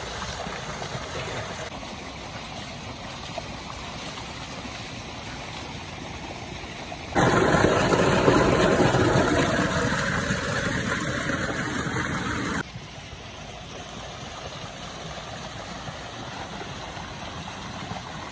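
Water gushing from a tubewell's outlet pipe and splashing into a brick tank, a steady rushing splash. About seven seconds in it turns much louder for some five seconds, as the water falls right by, then drops back abruptly.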